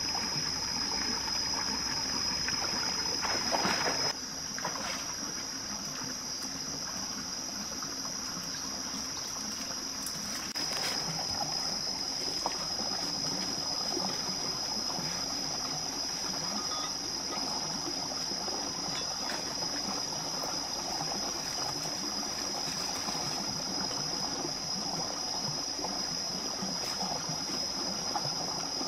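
A shallow rocky forest stream running and trickling, with a steady high-pitched whine over it.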